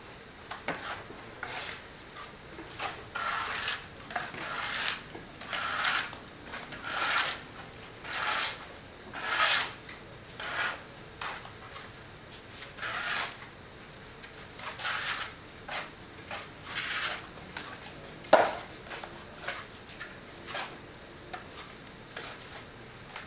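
Plastering trowel scraping over wet cement render on a block wall: repeated rasping strokes, each about half a second long, with short gaps between them. A single sharp knock about three-quarters of the way through.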